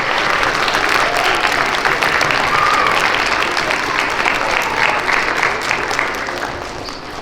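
An audience of schoolchildren applauding, with a few voices heard over the clapping. The applause eases off near the end.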